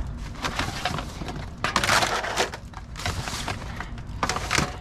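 Rummaging through dumpster junk: a jumble of knocks, clatters and crackling as plastic and metal pieces and wire are shifted and tossed about. It is loudest about two seconds in.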